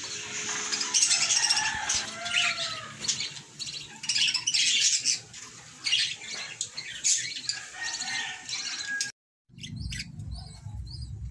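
A flock of budgerigars chattering, many short high chirps and warbles overlapping. About nine seconds in the sound cuts off briefly, then a fainter low rumble follows with a few quiet chirps.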